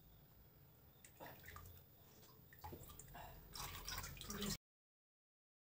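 Thick colostrum milk trickling and dripping through a tea strainer into a metal pot, with small irregular splashes and light clinks that grow louder near the end; the sound cuts off suddenly about four and a half seconds in.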